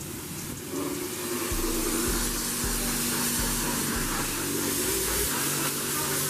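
High-pressure water spraying from a self-serve car wash wand onto a car's body, a steady hiss that grows louder about a second in.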